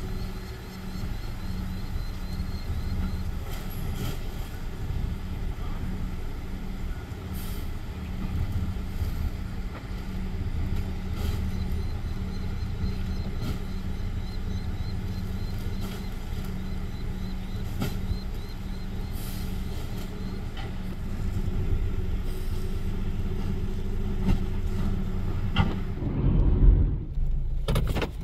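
Split rear-loader garbage truck's diesel engine idling with a steady hum, with scattered knocks and thuds as bags are thrown into the rear hopper. Near the end the engine sound surges louder for a moment.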